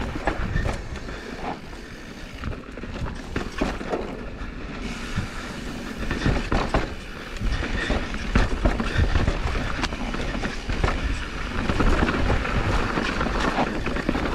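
Mountain bike rolling fast down a rocky dirt trail: the tyres rumble over dirt and stones, and frequent small knocks and rattles come from the bike as it is jolted.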